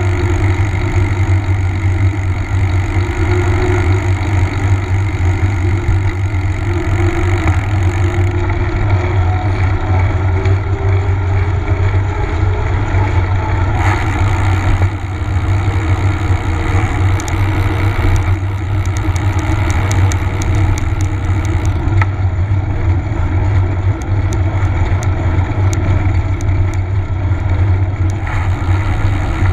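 Steady wind rumble on a bicycle-mounted action camera's microphone while riding, mixed with tyre noise on asphalt, with scattered light clicks in the second half.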